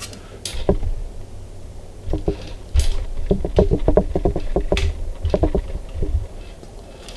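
Irregular light clicks and knocks of small parts and hand tools being handled while a jumper wire is fitted to a new switch, some with a short ringing tone.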